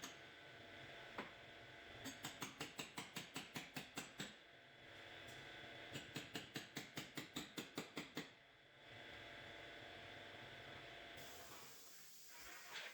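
Two runs of rapid, even mechanical clicking, about five or six clicks a second and each lasting about two seconds, over a faint steady hum.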